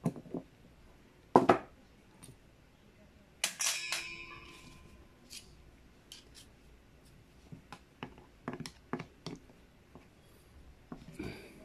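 Light metallic clicks and taps of a screwdriver against a motorcycle carburetor, with a sharp click about a second and a half in and a ringing metal clink about three and a half seconds in that fades over about a second.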